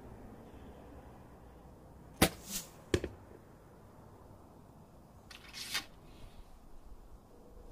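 Junxing M183 recurve bow shot: a sharp, loud snap as the string is released about two seconds in, then a second sharp knock under a second later. A softer rustle follows a couple of seconds after.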